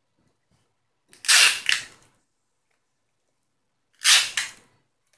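Homemade cardboard toy shotgun worked by hand: two short scraping strokes of cardboard sliding on cardboard, about three seconds apart, each with a quick double peak.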